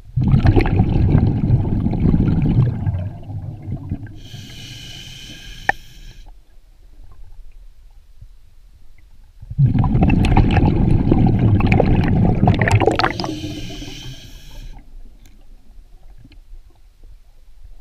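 Scuba diver breathing through a regulator underwater: twice, a loud rush of exhaled bubbles followed by the thinner hiss of an inhalation, with a quiet pause between breaths.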